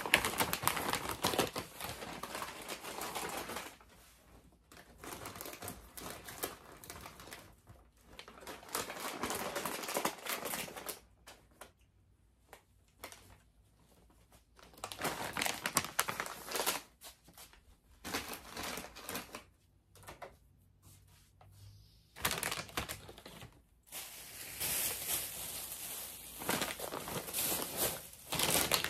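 Crinkly plastic snack bags rustling and crackling as they are handled and put away, with sharp clicks and taps. The sound comes in irregular bursts with quieter gaps between them.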